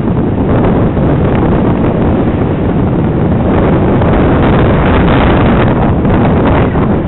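Wind buffeting loudly and steadily on a MUVI headcam's microphone while riding a mountain bike along a tarmac road.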